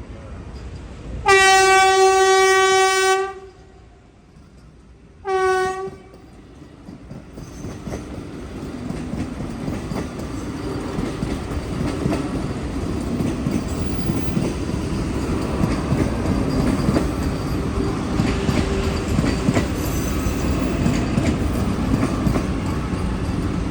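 Train horn sounding one long blast and then a short one. After that a train approaches and passes, its wheels rumbling on the rails more and more loudly.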